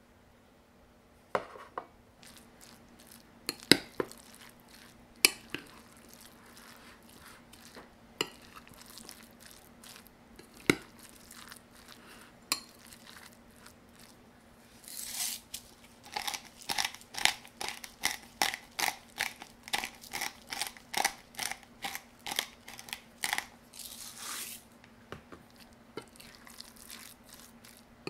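Metal spoon mixing ground meat, diced onion and egg yolk in a glass bowl, making wet squelching strokes about two a second through the second half, with the spoon clinking and knocking against the glass. In the first half there are only scattered single taps and knocks.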